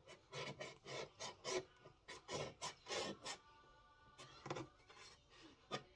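Paintbrush bristles scrubbing across a small canvas in short, scratchy strokes, about three a second, pausing briefly then a few more strokes near the end.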